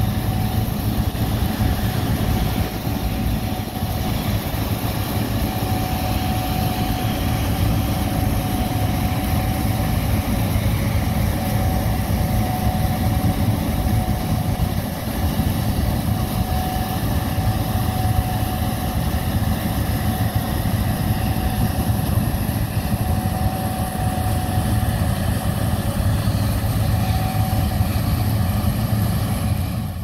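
Gleaner S67 combine harvester running steadily while harvesting soybeans: a constant low engine drone with a faint steady whine above it.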